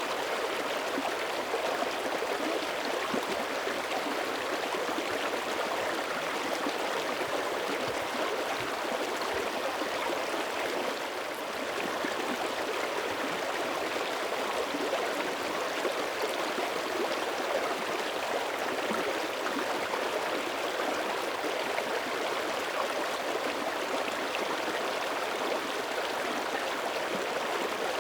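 Shallow mountain creek running steadily over stones: a continuous babble and gurgle of flowing water. Thin ice is forming at its edges while the current still runs.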